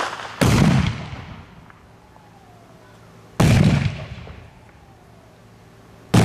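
Oxyhydrogen (HHO) gas-filled balloons detonating one after another as a torch ignites them: four sharp bangs, two close together at the start, one about three seconds in and one near the end, each echoing away over about a second.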